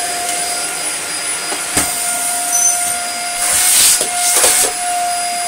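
Dyson Small Ball upright vacuum cleaner running, being checked for suction: a steady motor whine over rushing air, with short louder rushes of air about two and four seconds in as the machine is handled.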